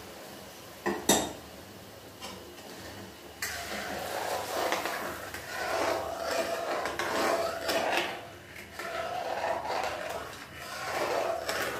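Long-handled metal spatula stirring semolina halwa in a metal kadhai on full flame, just after the hot sugar water has gone in: a steady hiss at first, a sharp metal clank about a second in, then repeated scraping strokes against the pan from about three seconds in.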